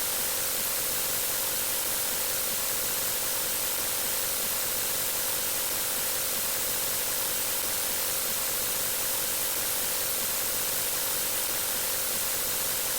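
Steady, unchanging hiss like static, with a faint steady tone underneath.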